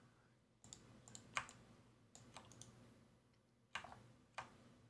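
Faint, scattered clicks of a computer keyboard and mouse: about eight separate keystrokes at irregular intervals over a low, steady hum.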